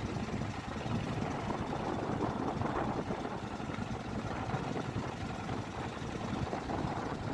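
Small ketek motorboat's engine running steadily underway.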